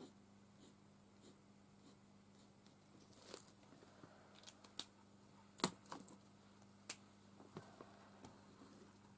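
Pens being handled on a desk: a scatter of light clicks and taps as they are set down and picked up, the sharpest a little past halfway, over faint room tone with a low steady hum.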